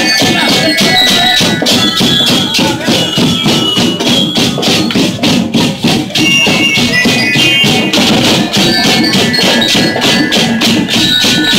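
Marching band drum line playing a fast, dense beat on snare and tenor drums, with a high ringing, bell-like melody over it.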